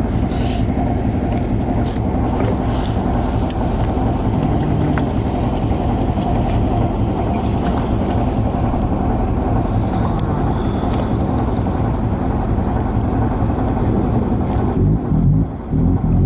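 Boat engine running loudly and steadily. About a second before the end, a few deep, repeated burp-like pulses rise over it: the unexplained sound heard reverberating through the air.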